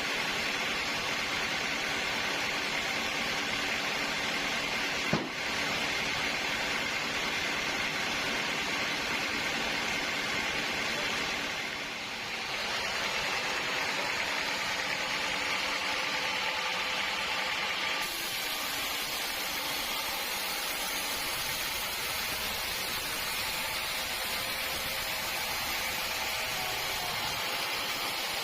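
Steady running noise of sawmill machinery, a hiss with a faint hum, broken by one sharp click about five seconds in; the sound changes abruptly about eighteen seconds in.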